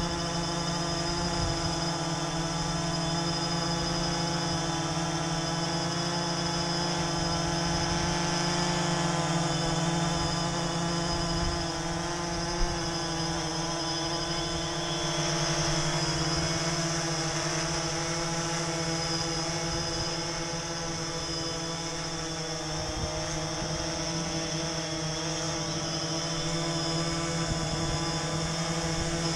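DJI Phantom 3 Standard quadcopter hovering on Master Airscrew propellers: the four rotors give a steady whine of many stacked tones over a strong low hum and a high hiss. A single short click comes about twelve seconds in.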